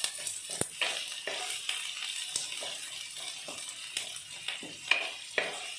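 Chopped onions frying in hot oil in a non-stick kadai, sizzling softly while a wooden spatula stirs them, with irregular scrapes and taps of the spatula against the pan and one sharper tap near the end.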